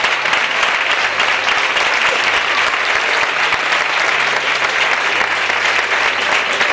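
Audience applauding: a dense, steady patter of many hands clapping at once, even in level throughout.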